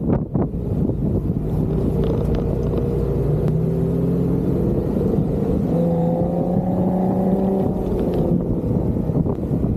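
An off-road 4x4's engine running, its note rising and falling as it is worked, over a steady low rumble of wind on the microphone.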